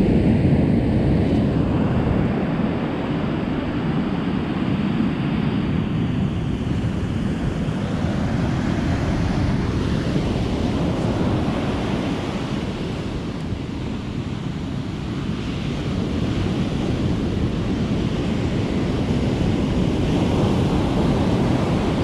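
Ocean surf breaking and washing up a sandy beach: a steady rush of waves with wind on the microphone, easing a little past the middle and building again near the end.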